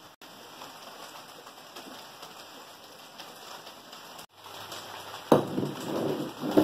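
Faint steady background hiss, then a sudden knock and a second or so of rustling and shuffling near the end as a person moves on a tiled floor with a plate in hand.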